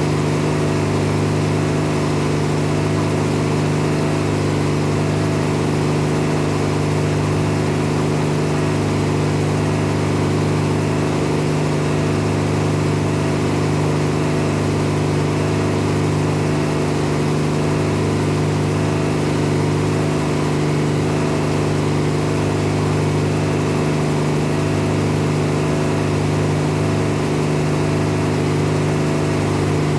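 Farm machinery engine running steadily at a constant speed, a deep even hum with no change in pitch.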